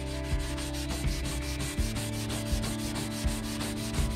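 Nonwoven abrasive pad rubbed by hand along a sandblasted metal boat-hatch frame, steady scratching strokes about one every three-quarters of a second. The rough blasted surface is being smoothed.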